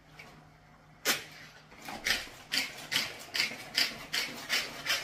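Hand-operated vegetable chopper chopping tomatoes: a sharp knock about a second in, then short whirring strokes of the blades in the plastic bowl, about two and a half a second.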